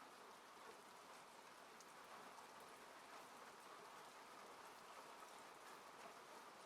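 Faint steady rain falling on a car, heard from inside: an even hiss with scattered light drop ticks.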